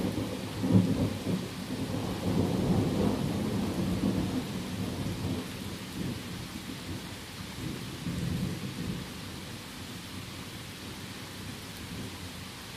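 Rolling thunder over steady heavy rain. The low rumble swells and fades through the first half, rises once more about eight seconds in, then dies away and leaves the hiss of the rain.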